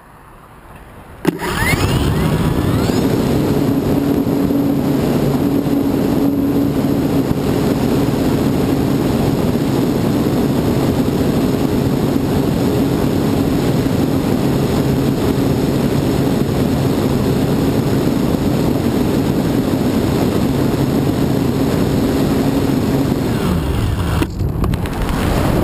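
Parkzone Radian electric glider's motor and nose propeller starting about a second in with a rising whine, then running with a steady drone mixed with wind noise on the nose-mounted camera's microphone. Near the end the drone's pitch drops away as the motor is throttled back, leaving the rush of wind.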